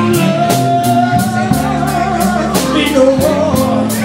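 Live rock band playing: a male singer holds a long sung note over electric guitar, electric bass and a drum kit keeping a steady cymbal beat.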